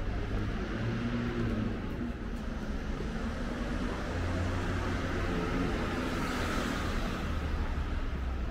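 City street traffic: a steady low rumble of engines, with the tyre hiss of a passing car swelling about two thirds of the way through.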